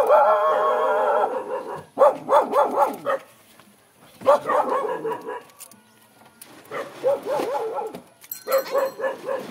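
A dog barking in quick runs of short yaps, about four a second, after a longer drawn-out cry at the start.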